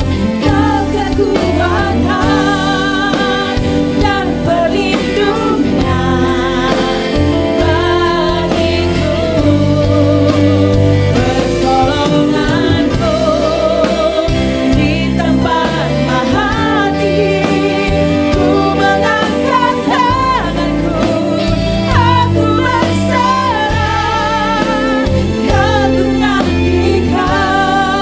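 Three women singing a Christian worship song together, voices held with vibrato, over instrumental accompaniment with bass and drums.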